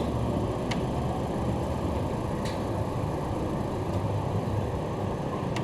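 Steady low running rumble of an electric commuter train moving at reduced speed, heard inside the passenger car, with a couple of light clicks.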